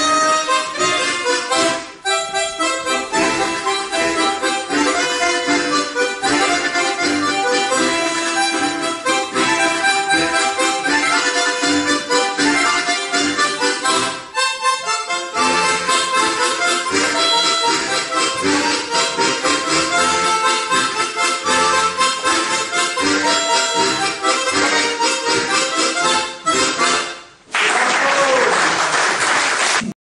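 A harmonica ensemble playing a tune together in harmony, with brief pauses about 2 and 14 seconds in. The music ends shortly before the close and applause follows.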